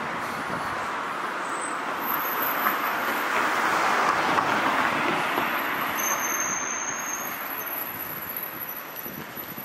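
Street traffic: a car driving past, its tyre and engine noise swelling to a peak about four seconds in, then fading away.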